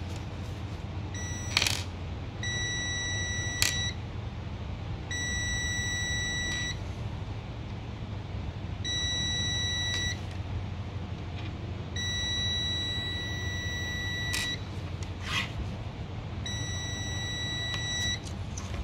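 Digital multimeter's continuity buzzer giving a steady, high-pitched beep six times, the first brief and the rest one to two and a half seconds long, each time the probes are held across a fuse. The beep means the fuse conducts and is good. Sharp clicks come as the metal probe tips touch the fuse end caps.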